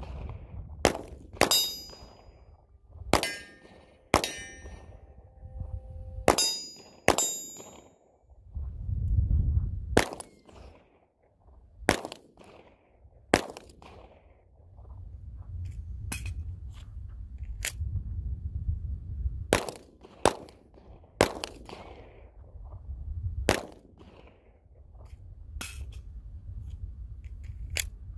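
Handgun shots fired one at a time, a second or two apart, each a sharp crack. Several in the first seconds are followed by a short metallic ring.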